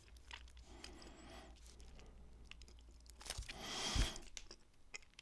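A person chewing a soft pressed date-and-banana snack bar, with quiet wet mouth clicks. A brief louder rustling noise about three and a half seconds in.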